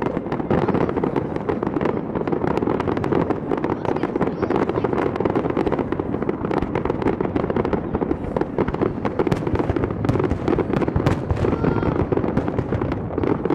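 Fireworks display going off in a dense, continuous barrage: a rapid, unbroken stream of cracks and pops.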